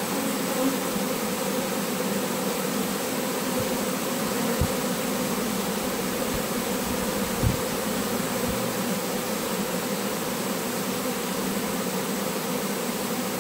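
A honeybee swarm buzzing densely around an open hive box as it is being hived, a steady, full hum. A couple of brief low bumps break in near the middle.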